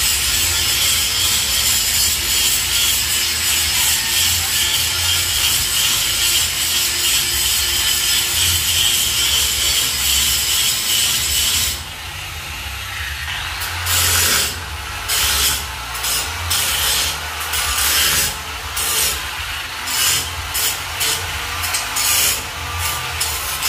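Handheld power tool working on a steel security grill: it runs steadily for about twelve seconds, then in short on-and-off bursts.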